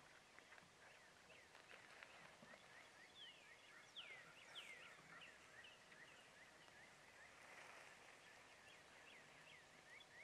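Faint, distant wild turkeys gobbling, under a steady chorus of small birds chirping with quick falling notes.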